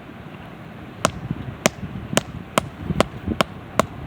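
Stone striking stone: a rock hammered against another rock to break flakes off its sides while shaping an arrowhead. About seven sharp knocks, the first alone, then a steady run of strikes roughly every half second from about a second in.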